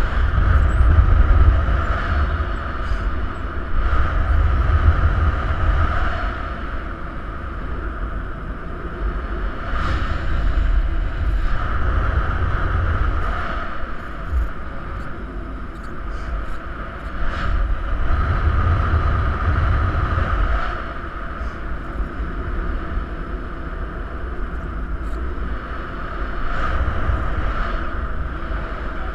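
Wind rushing over the microphone of a paraglider pilot's camera during a winch-tow climb: a steady, heavy low rumble with a higher hiss that swells and fades every few seconds, and a few brief clicks.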